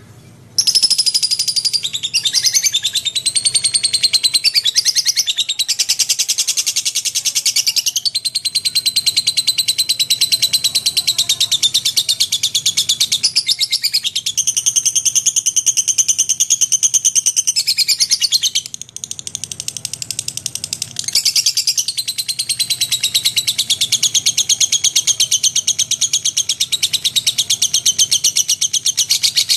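Small songbird singing a long, high-pitched, rapid trilling chatter of fast repeated notes. It starts about half a second in and breaks off briefly about two-thirds of the way through.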